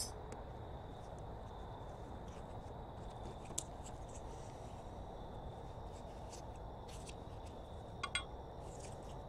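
A few light hammer taps on a rusted-in brake caliper slide pin: a single sharp metallic tap about three and a half seconds in and a quick pair of taps around eight seconds, with fainter ticks between. The pin is seized by rust.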